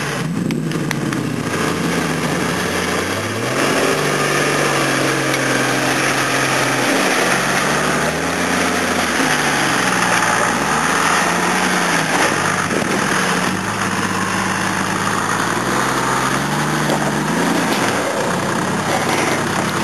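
Toyota Land Cruiser 80's engine under load climbing a steep mud hill, the revs rising and falling several times as the driver works the throttle.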